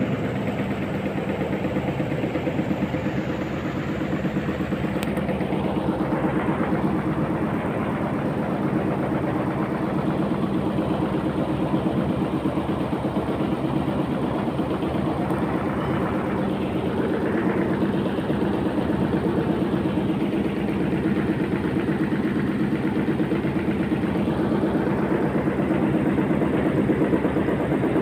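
An engine idling steadily, an even running hum that holds the same pitch and level throughout.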